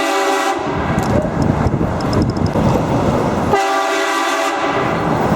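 Train horn mounted on a vehicle blasting twice, the first blast cutting off about half a second in and a second, roughly one-second blast about three seconds later, over steady road noise.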